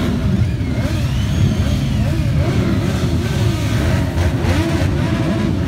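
Many motorcycle engines running together, with overlapping revs rising and falling as the bikes pull away in a group.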